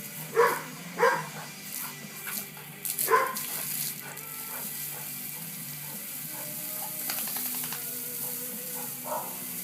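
A dog barks three times in the first few seconds, short sharp barks, the last about two seconds after the first two.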